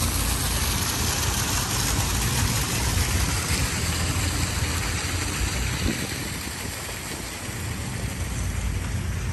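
Fountain jets splashing into a reflecting pool: a steady rushing hiss over a low rumble, easing a little after about six seconds.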